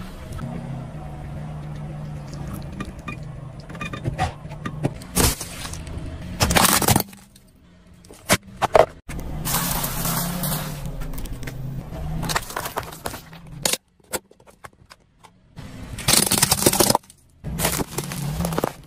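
Car tyre rolling slowly over objects and crushing them: cracks, crunches and squashing noises over the low hum of the idling car. The sound comes in a string of short clips, broken by abrupt cuts and two short near-silent gaps.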